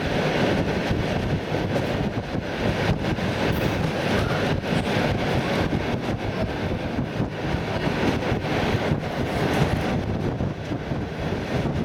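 ER9T electric multiple unit running along the line, heard from inside the carriage: a steady rumble of wheels on the rails with scattered knocks and clicks.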